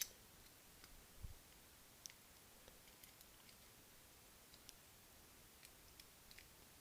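Faint, scattered small metallic clicks as keys and a compact key holder's screw are handled and turned, with a soft knock about a second in; otherwise near silence.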